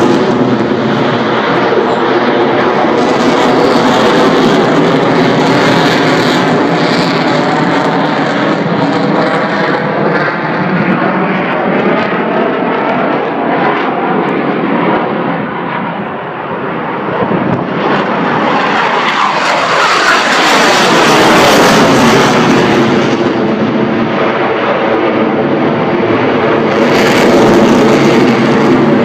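Eurofighter Typhoon's twin jet engines as it flies past, loud throughout. The noise eases off about halfway through, then swells again with a sweeping change in pitch as the jet passes.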